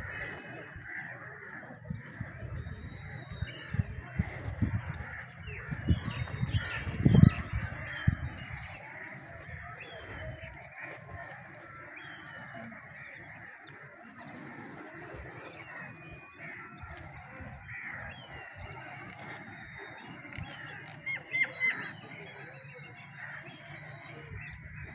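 Outdoor ambience of many birds calling and chirping, with a louder burst of calls a little past twenty seconds in. Low thumps and rumbles hit the microphone during the first eight seconds.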